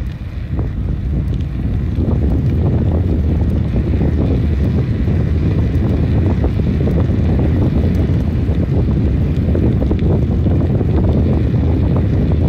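Wind buffeting the microphone on a bicycle moving at about 15 mph: a loud, steady low rumble, a little quieter in the first second or two.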